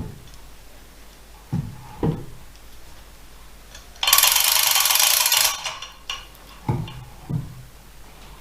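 A hand chain block's chain and ratchet rattling in a fast run of clicks for about a second and a half while the load is hoisted. Before and after it come a few separate metal knocks and clunks.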